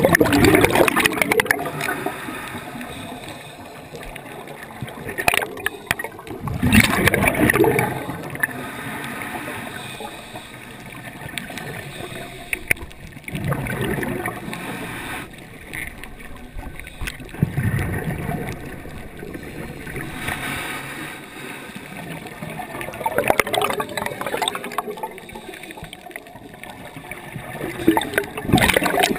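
Scuba diver breathing through a regulator underwater: exhaled bubbles gurgle out in loud surges about every five to six seconds, with a steady underwater hiss between them.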